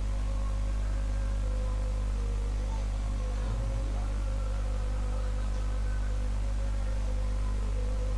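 Steady electrical mains hum: a low buzz with its overtones, over a faint hiss.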